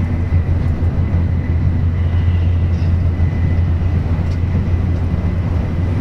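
Steady low rumble of an N700A Shinkansen running at speed, heard from inside the passenger cabin. A faint thin high tone sits over it in the first half.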